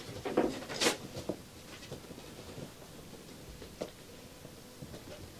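Paper rustling as a sheet is handled and opened, most of it in about the first second, followed by a few faint ticks.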